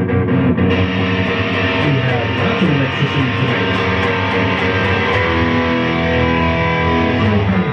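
Electric guitar playing, with notes sliding in pitch about two seconds in.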